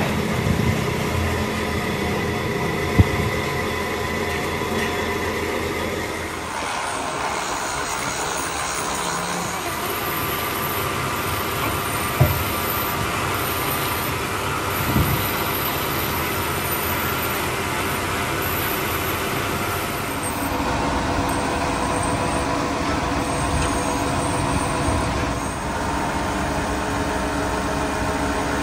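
Metal patch plate being ground against a spindle-mounted grinding wheel through the middle of the stretch, a dense rasping hiss over a steady machine hum. Before and after it the hum carries on alone, with a few sharp knocks of metal being handled.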